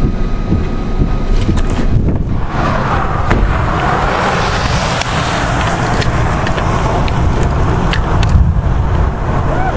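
Wind buffeting the microphone in a low, uneven rumble, with a broader rushing sound swelling up about two seconds in and dying back near the end.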